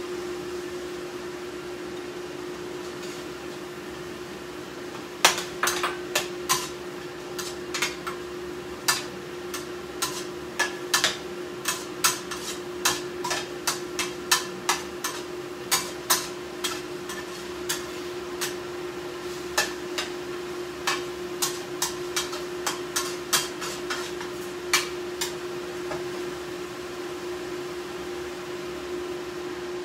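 Kitchen utensils knocking and clinking against cookware in sharp, irregular knocks, one or two a second, from about five seconds in until near the end, over a steady hum.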